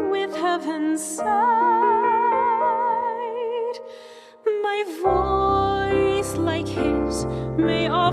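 Music: a gently sung song with piano accompaniment, the voice holding long notes with vibrato. The music drops away briefly about four seconds in, then comes back fuller with bass about five seconds in.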